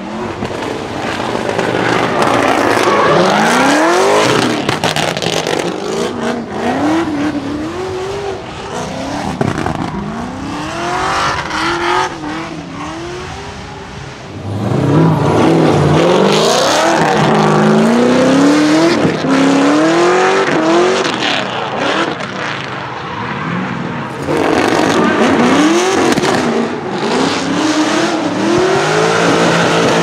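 Naturally aspirated LS7 440 V8 (Mast Motorsport) of a Nissan S13 pick-up drift car revving hard in repeated rising and falling bursts while drifting, with tyres squealing and crackles from its backfire/crackle ECU map. It gets louder about halfway through as the car comes closer.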